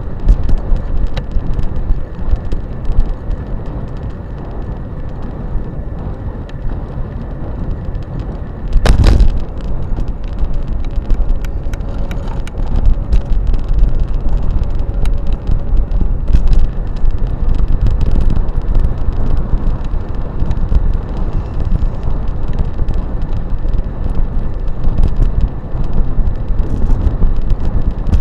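Electric bike ridden over rough dirt: a steady rumble of wind and ground noise on the microphone, with frequent small rattles and a loud knock about nine seconds in.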